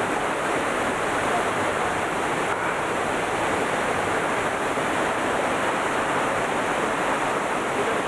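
Steady rush of La Fortuna waterfall and the boulder-strewn river rapids below it, an even, unbroken water noise.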